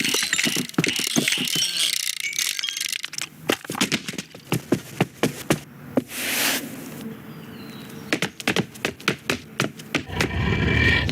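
Rapid mechanical clicking and rattling, like small ratchets or gears, with a short hiss about six seconds in. A loud, low roar begins near the end.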